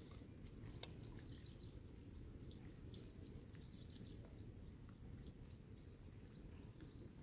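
Near silence: faint outdoor ambience with a low rumble, a steady thin high tone, and one soft click about a second in.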